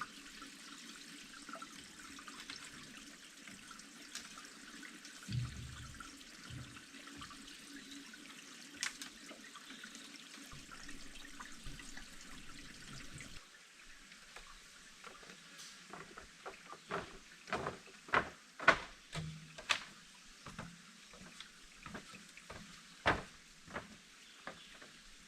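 Water running and trickling steadily. About halfway through the sound changes suddenly, followed by a run of sharp, irregular knocks and taps, several a second at their densest.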